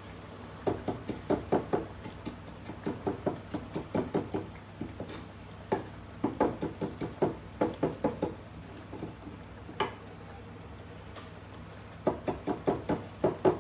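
Kitchen knife chopping on a wooden chopping board: four runs of quick strokes, about six a second, with a single knock here and there between them.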